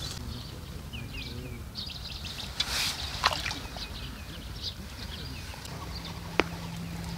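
Small birds chirping and calling over and over, with a low outdoor rumble beneath. A brief rustling burst comes about three seconds in, a sharp click later on, and a steady low hum starts near the end.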